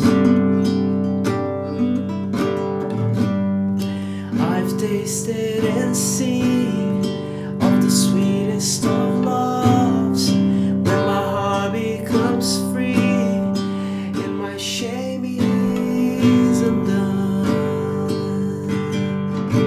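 A man singing to a strummed nylon-string classical guitar, with his voice coming in about four seconds in over the steady strumming.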